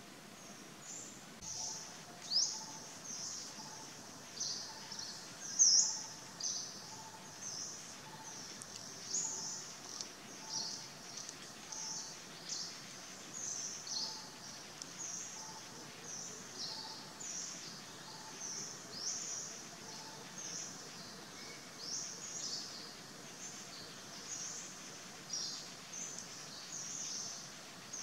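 Forest ambience of many small birds chirping in quick, short, high notes, many of them falling in pitch. A faint low note repeats a little more than once a second through the first two-thirds.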